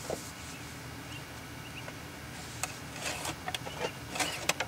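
Engine oil dipstick being slid back into its tube to check the oil level: a quick run of light clicks and scrapes in the second half, with cloth rustling. Faint bird chirps in the background.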